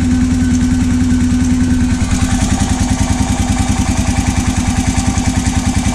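Honda 650 engine idling just after being started. About two seconds in, the steady note turns into an even, rapid pulsing.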